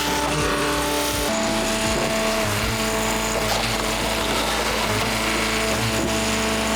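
Commercial hydraulic log splitter running steadily while splitting firewood logs. Its held note changes about a second in and then stays steady.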